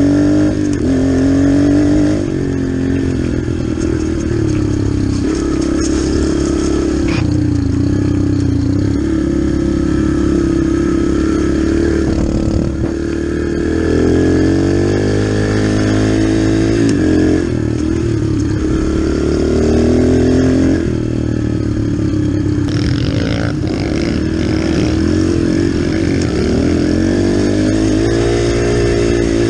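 Dirt bike engine under way, its pitch climbing as it accelerates and dropping back again and again as the rider shifts gears and rolls off the throttle.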